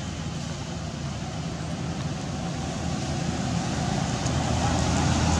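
A steady low engine hum, growing slowly louder.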